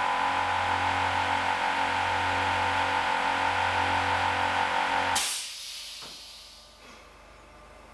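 A workshop machine's electric motor running steadily with a hum and a whine, switched off about five seconds in and winding down to quiet.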